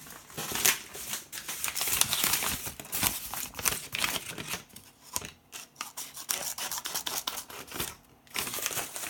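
The small scissors of a Victorinox Voyageur pocket knife snipping repeatedly, a fast, irregular run of sharp little cuts with short pauses.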